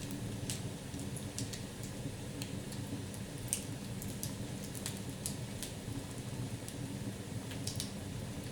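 Fire burning in a fireplace: a steady low rumble of the flames with irregular sharp crackles and pops, the loudest about three and a half seconds in.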